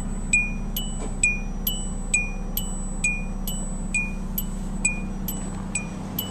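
2002 Hyundai Elantra's electronic warning chime pinging over and over, about two chimes a second, over a steady low hum.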